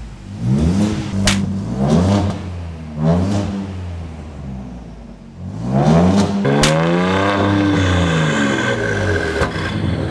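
Ford Ranger Raptor's 3.0-litre twin-turbo V6 revved through a prototype aftermarket dump-pipe exhaust: three quick blips that rise and fall in pitch, then one longer rev up and back down about halfway through. Two sharp cracks stand out, one early and one at the peak of the long rev.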